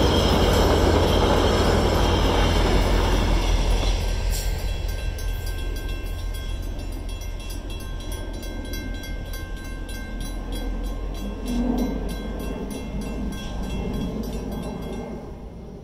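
VIA Rail passenger coaches rolling past a level crossing, a loud rumble that fades away over the first few seconds as the train clears. From about four seconds in, the crossing's warning bell rings in a fast, steady beat over the dying rumble, stopping just before the end.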